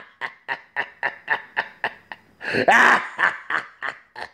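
A man laughing: a run of short, quick snickers at about four a second, with one louder, longer laugh about two and a half seconds in.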